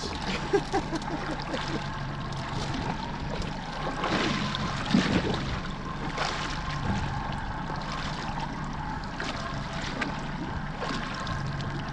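Water sloshing and trickling against a small boat's hull, over a steady low hum.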